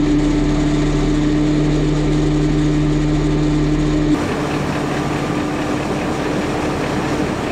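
Steady machine hum of a TOS-2 rocket launcher vehicle as its launcher pack elevates. About four seconds in, the tone weakens and the low rumble drops away.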